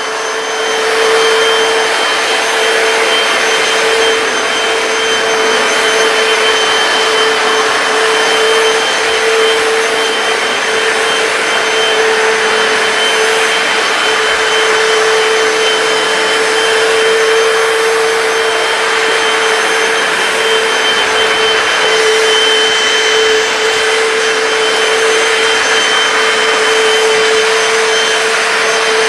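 Hoover PowerDash hard floor cleaner running steadily, its motor giving a constant whine over the rush of suction as it cleans a hardened stain on a tile floor.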